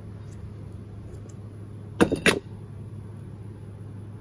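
Two sharp metal clanks about a quarter second apart, a couple of seconds in: the aluminum swim-bait injection mold being handled and set down on the metal worktable, over a steady low hum.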